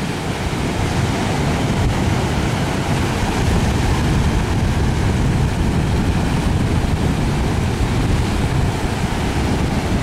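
Steady wind rumble on the microphone over the wash of surf breaking on the beach.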